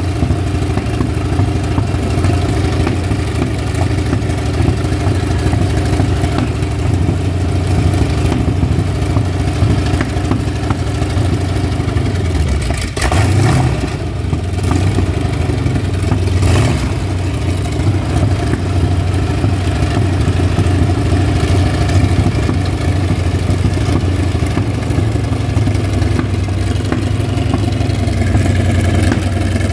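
Continental R975-C1 nine-cylinder radial engine from an M4 Sherman tank running on a test stand, on its first successful run after a new supercharger bearing and impeller. It runs steadily, its speed sagging briefly and picking back up about a dozen seconds in.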